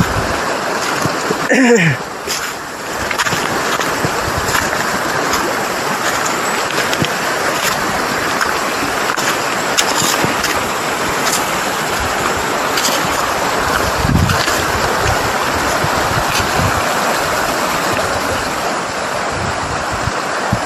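Steady rush of a river's flowing water, an even hiss with no break. About two seconds in, a brief sweep falls quickly in pitch.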